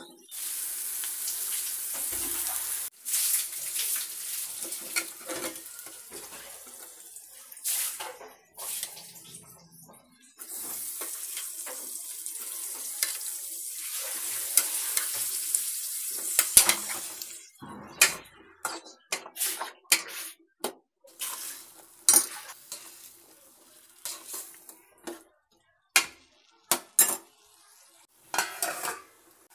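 Onion and tomato sizzling in hot oil in a metal kadai, a steady hiss that drops out briefly about ten seconds in and fades after about 17 seconds. From then on a metal spoon stirs chickpeas in the pan, clinking and scraping against its side in many separate sharp knocks.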